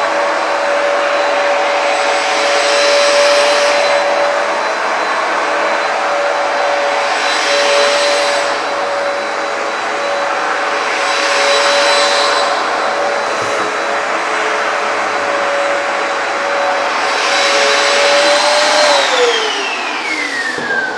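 Hoover PowerDash carpet cleaner running on its dirty passes over a rug: a steady motor whine over a loud hiss of suction, the high hiss swelling every four seconds or so as the machine is worked back and forth. About two seconds before the end it is switched off and the whine falls away as the motor winds down.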